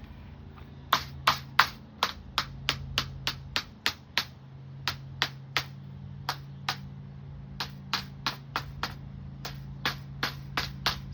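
Hammer lightly tapping a metal screen spline down into the channel of a window screen frame to seat it. The taps are sharp and come in quick runs of about two to three a second, with short pauses, over a steady low hum.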